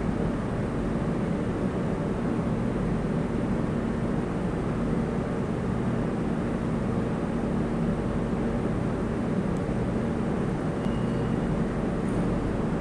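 Steady hum and drone of a metro train standing at an underground platform, its on-board equipment running while it waits. A short, faint high tone sounds near the end.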